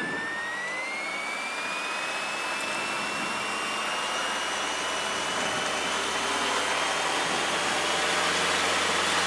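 Light aircraft's piston engine at full power on the takeoff roll, a high tone in it rising in pitch over the first couple of seconds and then holding steady as the sound slowly grows louder.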